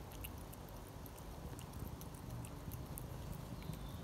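A cat licking and chewing at a squeezed sachet of lickable cat treat, biting at the packet: a run of faint, irregular small clicks and smacks.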